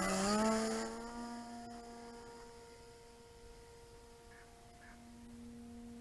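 Electric motor and propeller of a radio-controlled Seagull Models Gypsy Moth biplane on a six-cell electric setup, humming with one steady tone as it flies low past. Its pitch rises a little in the first second, then it fades as the plane flies away, swelling slightly again near the end.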